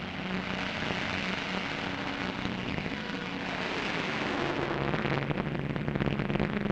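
Piston engines of a four-engined heavy bomber running at full power on the takeoff run: a steady, loud drone with a low hum, swelling a little in the second half.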